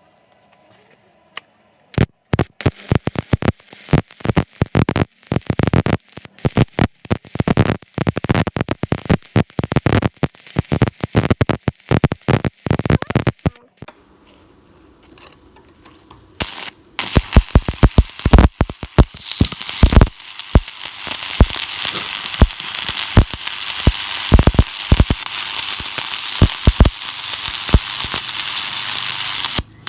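Stick-welding arc on a 6013 electrode. It crackles in broken, stop-start bursts for about ten seconds, falls quiet for a few seconds, then settles into a steady crackle and hiss with frequent pops as the arc runs continuously.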